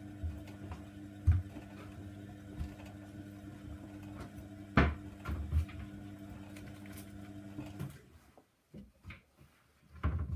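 Hoover Nextra washing machine drum tumbling a load: a steady motor hum with the load knocking against the drum, including two loud thumps about a second and nearly five seconds in. The motor stops abruptly about eight seconds in, leaving a few soft knocks as the drum comes to rest.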